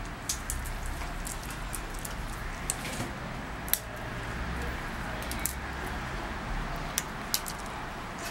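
Scattered sharp clicks and taps at irregular intervals from a Shiba Inu on a tiled floor, as it snaps at and picks up thrown dog biscuits, over a steady low background rumble.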